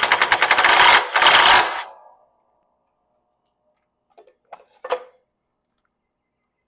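Impact wrench hammering in two short bursts, about a second and then half a second, spinning off the bolt of a failed hydrostat drive pulley. A few light metal clinks follow about four to five seconds in.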